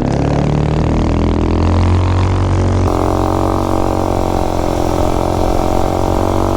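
Tillotson 263cc single-cylinder engine on a minibike running under load, its pitch climbing over the first few seconds, then changing and holding steady. The carburettor is jetted rich, which the rider says makes it stumble when he gets on the throttle.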